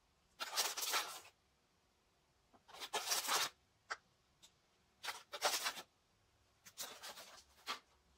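Dry white powder shaken from a container onto a rusty steel blade, in several short hissing bursts of grains pattering onto the metal and the plastic tub, with brief pauses between shakes.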